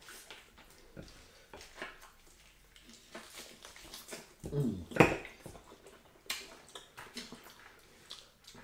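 Mouth sounds of people eating fufu and okra soup by hand: scattered chewing, lip-smacking and wet clicks, with a brief murmured voice and a sharp click about five seconds in.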